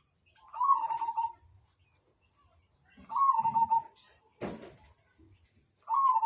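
Zebra dove (perkutut) cooing: three short phrases about three seconds apart, each a quick rising note running into a fast trill of coos. A single sharp click falls between the second and third phrases.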